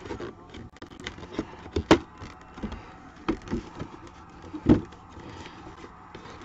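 Hands handling and opening a cardboard box: rustling and scraping of the flaps and paper seal, with scattered sharp taps and knocks, the loudest about two seconds in and near five seconds in.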